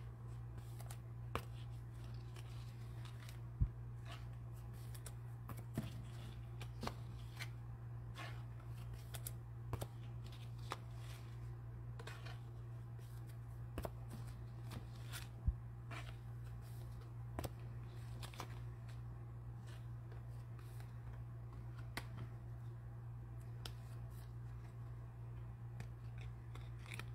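Trading cards and pack wrappers being handled and sorted, with scattered light clicks and taps and two sharper knocks, over a steady low hum.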